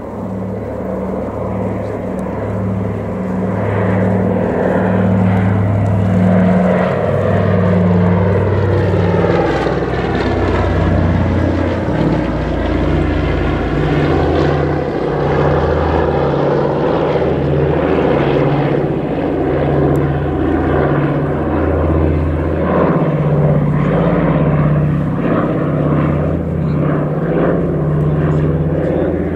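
Twin Pratt & Whitney R-1830 radial engines and propellers of a Consolidated PBY-5A Catalina amphibian flying past low. The engine note pulses slowly and regularly, grows louder over the first few seconds, and drops in pitch about ten seconds in as the aircraft passes, then carries on steadily.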